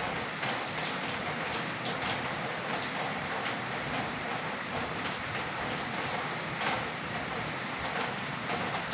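Light rain falling steadily: a dense patter of drops hitting a surface, with an occasional louder drip standing out.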